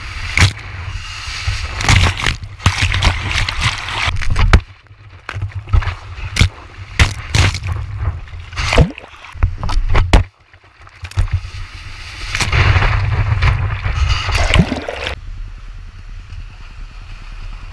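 Shorebreak water splashing and sloshing around a skimboard as it rides through the foam, heard close up with many sharp slaps and knocks on the board. There is a brief lull about ten seconds in.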